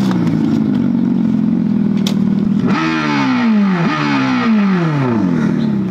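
Revolt RV400 electric motorcycle's simulated engine sound played through its onboard speaker: a steady motorcycle-like hum, then about three seconds in it revs up and dies away, blips again and falls away a second time. A sharp click a little before that.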